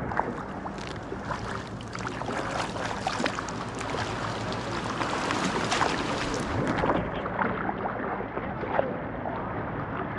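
Paddle strokes splashing in the water and water sloshing around a homemade foam kayak as it is paddled along, with a run of short splashes throughout.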